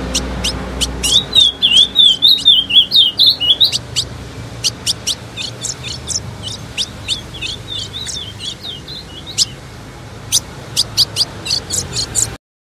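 Female ultramarine grosbeak (azulão) calling: a quick series of sharp, high chip notes, with twittering runs of notes in the first few seconds and again in the middle, over a low background hiss. The calling stops abruptly just before the end.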